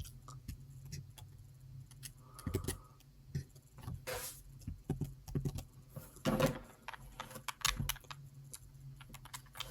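Sporadic light clicks and clattering of small hard objects being handled, with a brief hum about two and a half seconds in.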